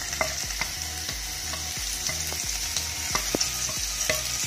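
Sliced onions frying in hot oil, sizzling steadily while a wooden spatula stirs them, with scattered clicks and scrapes of the spatula against the pan.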